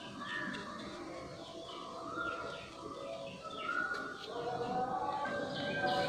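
Birds chirping in quick, repeated falling calls over background music with long held notes.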